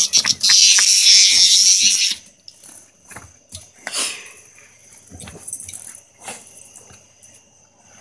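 A cicada buzzing loudly and harshly, cutting off suddenly about two seconds in, with another short buzz around four seconds. Light knocks and scuffles of the dogs on the floor around it.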